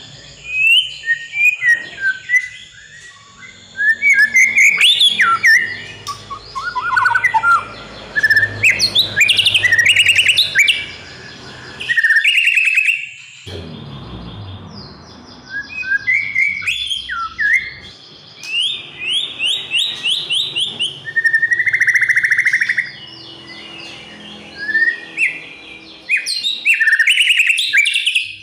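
White-rumped shama (murai batu) singing loudly and non-stop ('gacor'). The song is a rich, varied run of clear whistles, rapid trills and chattering sweeps, delivered in phrases of a second or two with short pauses between them. A thin steady high tone sits in the background through about the first half.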